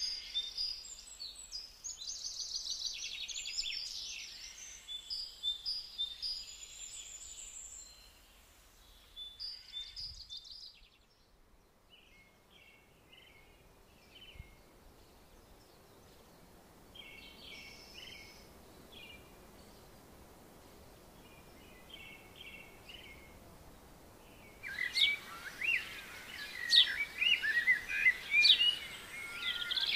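Songbirds singing, several songs overlapping at first, then only scattered short chirps through the middle, and a busy, louder burst of song near the end.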